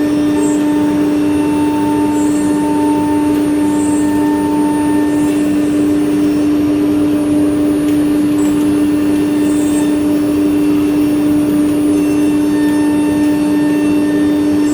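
CNC machining center running, giving a loud steady machine sound with one constant tone held throughout.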